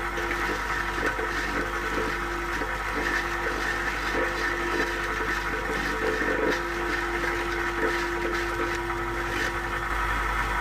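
Old-brick cleaning machine running, its motor-driven wire cup brush and scrapers grinding hardened mortar off an old brick pressed against them. A steady motor hum runs under a rough, uneven scraping.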